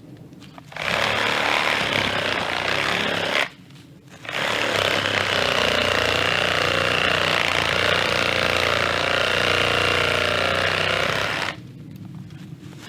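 Reciprocating saw with a carbide pruning blade running while cutting, in two bursts: about three seconds, then a brief stop, then about seven seconds. Between the bursts it goes fully quiet rather than idling.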